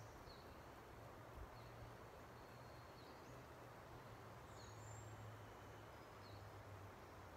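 Near silence: faint forest ambience with a low steady hum and a few faint, brief bird chirps.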